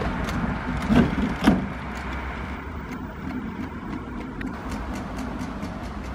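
A kayak on a two-wheeled trolley, towed by an electric scooter, rolling over brick paving, with two loud knocks about a second and a second and a half in as it bumps down onto the road.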